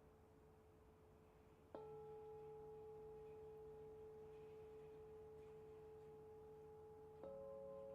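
Soft, long-ringing bell-like tones of meditation music. One note rings on, a new note is struck about two seconds in and holds steady, and a higher note is struck near the end.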